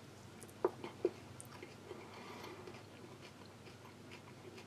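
Faint chewing of a soft coffee nougat bar gritty with sugar granules, with two small clicks in the first second or so.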